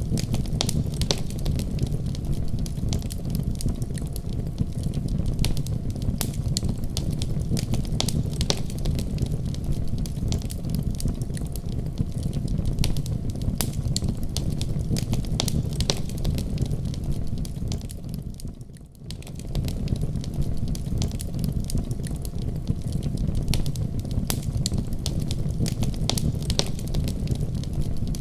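Wood fire burning in a fireplace: irregular sharp crackles and pops over a steady low roar of the flames, with a brief dip in level about two-thirds of the way through.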